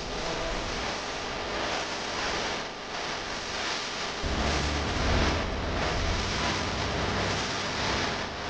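Steady noisy hubbub of a crowded exhibition hall, with a deeper low rumble coming in about four seconds in.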